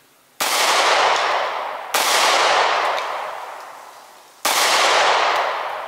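Three 9mm pistol shots fired one at a time, the second about a second and a half after the first and the third about two and a half seconds later. Each shot fades out slowly over a second or two.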